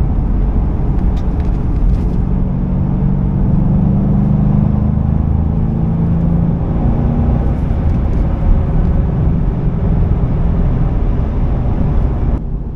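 Ford Mustang GT's 4.6-litre V8 running steadily while the car is driven, heard from inside the cabin as a low engine rumble with road noise; the engine note strengthens for a few seconds partway through.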